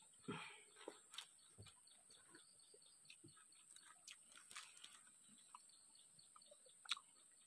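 Near silence: faint outdoor ambience with a steady high hiss and scattered soft clicks, and one sharper click near the end.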